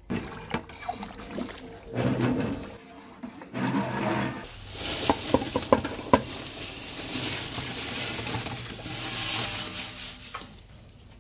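Dry instant noodle cakes sliding off a metal plate into a large aluminium pot of boiling water, with a quick run of clattering about halfway through. A steady hiss of the boiling water runs under it, after knocks of metal bowl and pot in the first few seconds.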